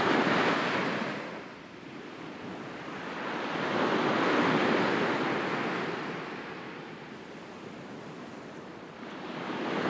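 Sea waves washing onto a shore, the surf noise slowly swelling and fading: one wash dies away in the first two seconds, the next swells to a peak near the middle and sinks again, and another begins to rise near the end.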